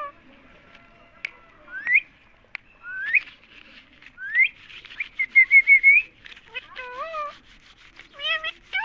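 Parrot whistling: three rising whistles about a second apart, then a quick run of short chirping notes, then wavering, rising-and-falling calls near the end.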